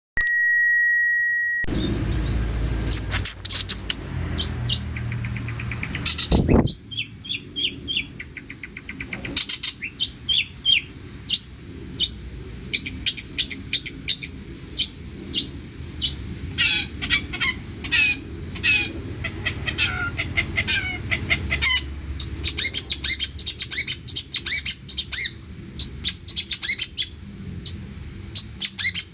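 Long-tailed shrike (cendet) singing a busy, varied song of rapid chirps, trills and quick note series, the mimicked phrases of other birds that make up a cendet's 'isian'. A brief steady tone sounds at the very start.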